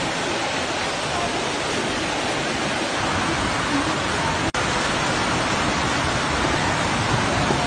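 Muddy floodwater rushing through a street, a steady, unbroken rush of noise, cut by a brief dropout about four and a half seconds in.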